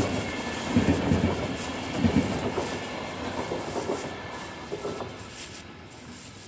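Intercity passenger coaches rolling past a level crossing, their wheels clattering over the rail joints in heavy, rhythmic thumps. The clatter fades as the end of the train moves away.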